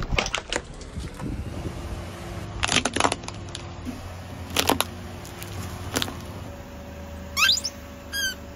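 Car running low and steady while objects crack and crunch under it, several sharp cracks spread over the first six seconds. Near the end come two short rising squeaks.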